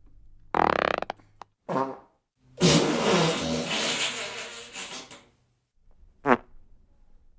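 Fart sound effects, four in a row: a short, loud pitched one about half a second in, a brief one near two seconds, a long, breathy one lasting about two and a half seconds, then a quick one near the end.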